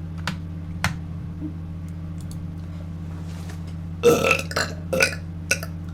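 A person burping loudly about four seconds in, followed by a few shorter burps, over a steady low electrical hum; two faint clicks come earlier.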